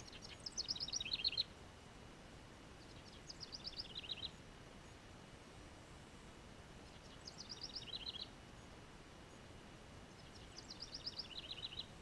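Wren singing four short songs, each a quick trill of high notes that drops into a lower, faster trill, repeated about every three and a half seconds.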